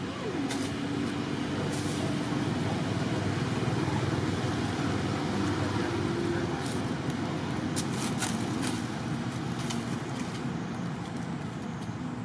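Steady outdoor background rumble and hiss with a faint low hum, broken by a few brief faint clicks.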